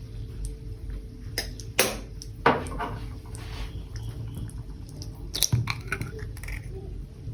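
Kitchenware clatter: a few sharp knocks and clinks, one a little before two seconds in, another about half a second later, and a short cluster past the middle, over a faint steady hum.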